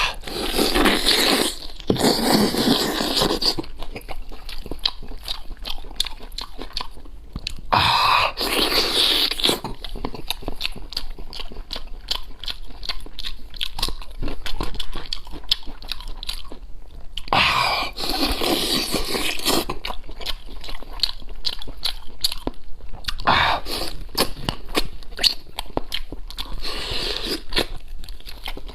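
A person chewing and biting into braised goat leg meat: continuous wet chewing and smacking, with several louder bursts of biting and tearing, near the start and about 8, 18 and 27 seconds in.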